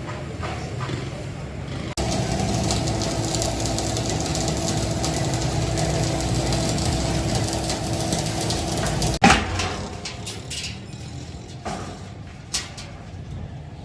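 A workshop machine running steadily with a constant hum for several seconds, then one sharp loud clank, followed by scattered metal knocks and clicks.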